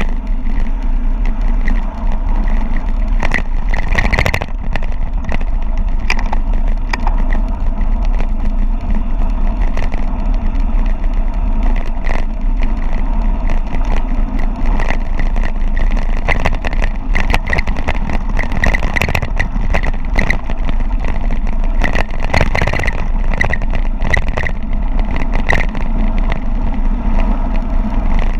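Wind rushing over the microphone of a mountain bike riding fast downhill on a rough mountain road, with the bike rattling and knocking over rocks and bumps throughout.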